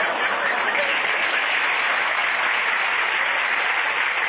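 Radio studio audience applauding steadily, heard through a narrow-band old broadcast recording.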